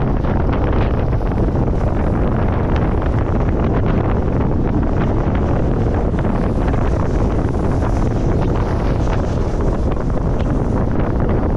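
Wind buffeting the microphone of a camera held out on a pole while snowboarding. Under it, the snowboard scrapes steadily over groomed, corduroy snow.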